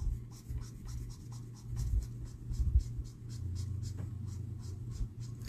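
Marker tip scratching over cardstock in quick, repeated coloring strokes, about four a second. The light shade is being worked over darker shading to blend it out.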